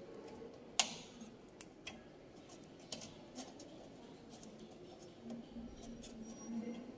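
A few sharp clicks and light knocks of small equipment parts and connectors being handled, the loudest a single click about a second in, over faint room tone.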